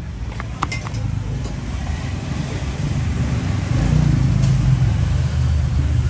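Low rumble of road traffic, swelling about four seconds in, with a few light clicks in the first second.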